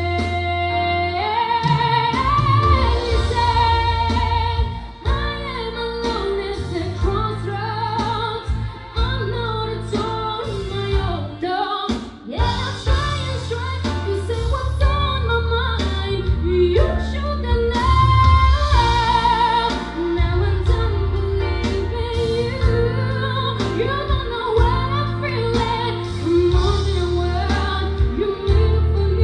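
A woman singing a pop song live into a microphone over instrumental accompaniment with a steady bass line and drum beat.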